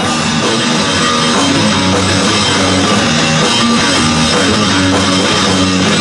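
Live rock band playing an instrumental passage on electric guitars, bass guitar and drum kit, with no singing, steady and loud.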